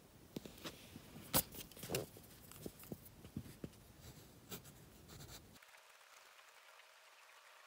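Mechanical pencil scratching and ticking on sketchbook paper in short strokes, the sharpest tick about a second and a half in. After about five and a half seconds it drops to a faint hiss.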